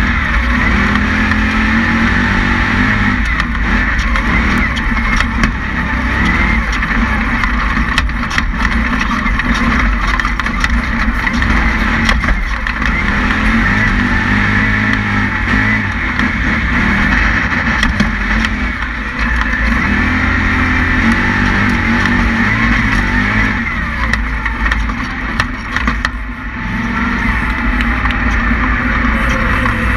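Resleeved 427ci aluminium LS V8 of an Ultra4 off-road race car running hard under load, its pitch rising and falling as the driver works the throttle, with sharp knocks now and then from the rough ground.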